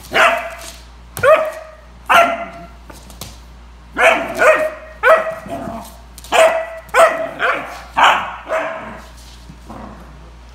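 A three-month-old Doberman puppy barking at a new toy: about a dozen short, high-pitched barks, singly and in quick pairs, dying away near the end.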